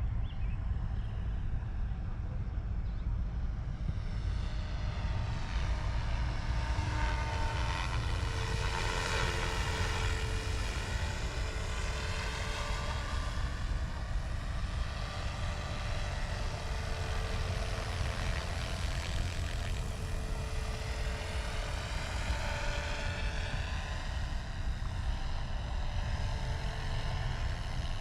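Small helicopter flying low, its engine and rotor noise swelling and sweeping as it passes close about a third of the way in and again about two thirds in, over a steady low rumble.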